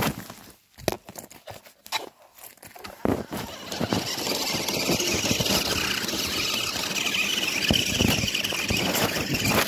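Crunching steps on leaves and gravel, then, from about four seconds in, a steady high whine from a radio-controlled truck's motor and drivetrain running.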